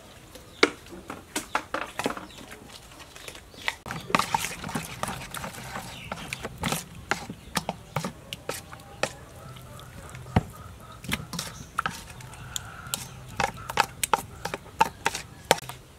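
A metal spoon stirring thick flour batter over chicken breasts in a stainless steel mixing bowl, clinking and knocking against the bowl many times at an uneven pace.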